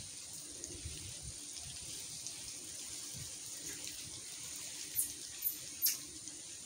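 Quiet ambience of wet trees just after heavy rain: a steady faint hiss with scattered dripping water. Three short, sharp high-pitched sounds come close together about five to six seconds in.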